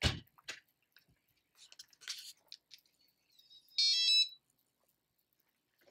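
An RV Lock keyless entry door lock gives a short, high electronic beep about four seconds in, answering a press of its key fob. It follows a single thump at the start and a few faint clicks.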